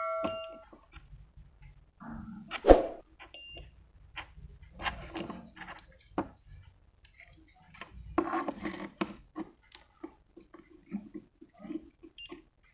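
Scattered clicks and rustling from a circuit board and multimeter probes being handled, with a sharp click about three seconds in and a louder rough burst of noise around eight seconds in.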